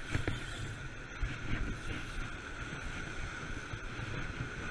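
Wind buffeting the microphone over surf washing against rocks, with a few small knocks in the first second and a half.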